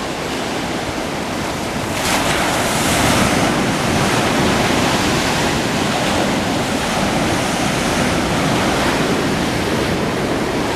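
Sea waves breaking and washing up at high tide, a steady rushing surf that swells about two seconds in, with wind buffeting the microphone.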